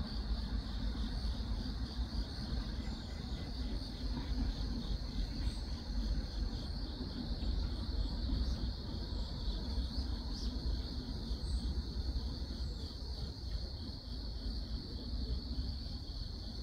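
Insects chirring steadily at one high, even pitch, over a continuous low rumble.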